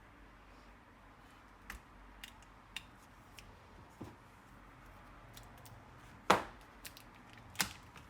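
Scattered sharp clicks and knocks from laptop parts and tools being handled, with a loud sharp knock about six seconds in and another about a second after it.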